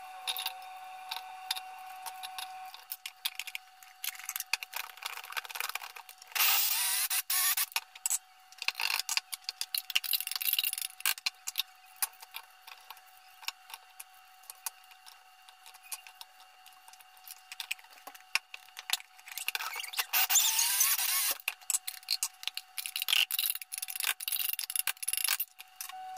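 Electric mini chopper running in two bursts of a second or two each, its motor rising in pitch as it spins up, mincing onion. Between the bursts come scattered clicks and knocks of a knife and dishes being handled.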